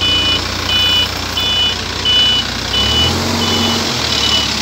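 Reversing alarm of a Case 851EX backhoe loader beeping steadily, a little over one beep a second, over the loader's diesel engine running; the engine grows louder for about a second around three seconds in.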